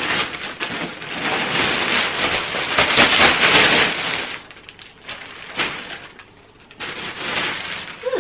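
Plastic mailing bag crinkling and rustling as it is torn open and pulled off, with dense crackling for the first four seconds, then a couple of shorter, softer rustles.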